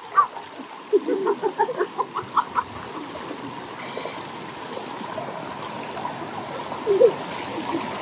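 Warm spring water flowing and splashing steadily in a natural thermal pool as children move through it. Short bursts of a child's voice come between about one and two and a half seconds in, and again near seven seconds.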